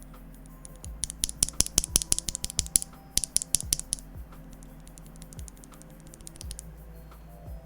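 Typing on a Tofu65 mechanical keyboard with a brass plate and Banana Split linear switches: a fast, loud flurry of keystrokes from about one to four seconds in, then slower, scattered key presses.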